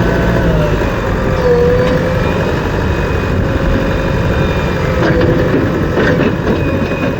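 Heavy engine running steadily at a constant, even level.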